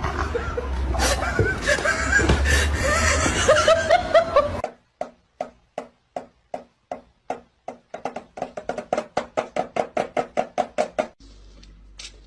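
A busy mix of noise, then an abrupt change to a series of short, sharp knocks with a slight ring, about two a second at first and then speeding up to about three a second before stopping suddenly.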